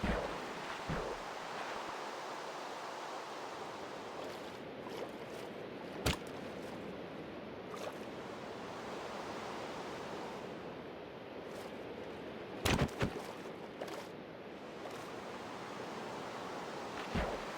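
Steady rain falling, an even hiss with a few sharp knocks about six seconds in and again near thirteen and fourteen seconds.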